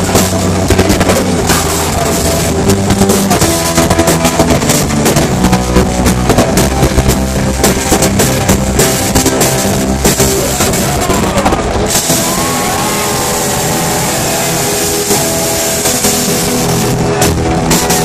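Live rock band playing loud: drums, distorted electric guitars and bass. About twelve seconds in the drum beat stops and held guitar chords ring on, and the beat comes back near the end.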